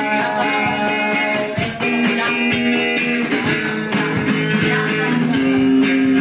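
Harmonica played into a microphone over a strummed acoustic guitar, with long held notes that shift in pitch every second or so.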